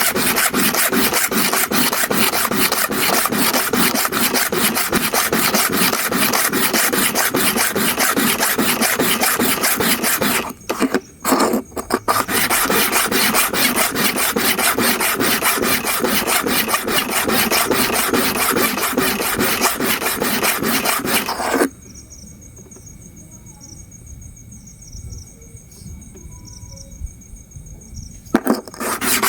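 Hair clipper blade rubbed rapidly back and forth on a diamond sharpening stone dressed with oil and abrasive powder: a steady gritty scraping. It stops for about a second roughly ten seconds in, then falls away for several seconds near the end, leaving only a faint steady tone, and starts again just before the end.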